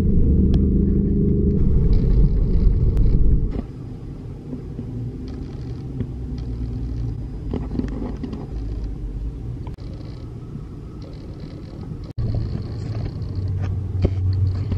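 Low, steady rumble of a car driving, heard from inside the cabin, which drops away after about three and a half seconds to a quieter background with a few light taps. A low rumble comes back near the end.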